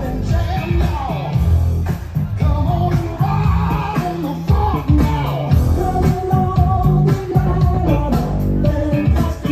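Loud dance music with a singing voice over a strong bass line.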